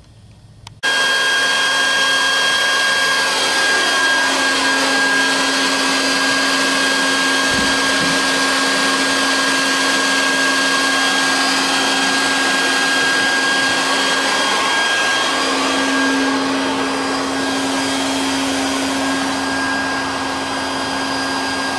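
Vacuum cleaner switched on about a second in, then running steadily with a constant whine. It is pulling the air out from behind a new above-ground pool liner to draw the wrinkles out.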